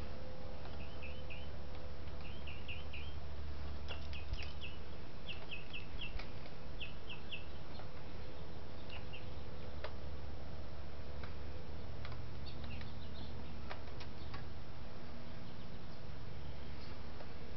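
Ratchet wrench clicking in short runs of three or four quick clicks, worked back and forth with pauses between strokes, tightening a clamp on the intake elbow.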